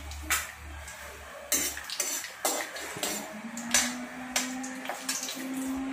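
A metal spoon stirring cumin seeds in hot oil in a kadhai (wok), scraping and clinking against the pan several times.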